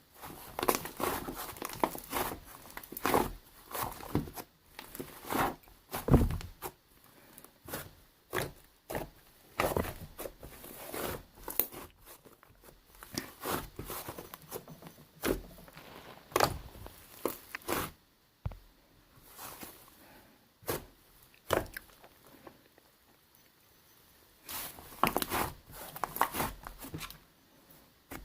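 Hands squishing, stretching and pressing toy slime, giving irregular bursts of crackling and popping every second or two.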